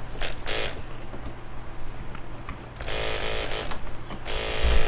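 Electric dog-grooming clipper buzzing in two brief spells, then running steadily from a little after four seconds in. Its blade is running slow, dry and needing lubrication.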